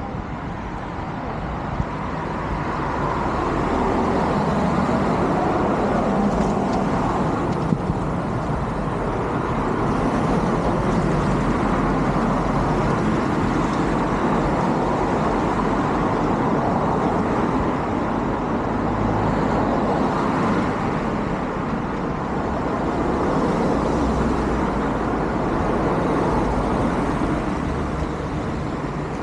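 Road traffic: cars passing on the road, a steady tyre and engine noise that swells and eases as each one goes by.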